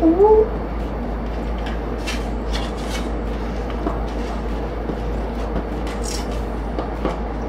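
Cut potato sticks being handled and rubbed on a foam plate: soft scattered clicks and rustling over a steady room hum. A short rising voice-like call is heard at the very start.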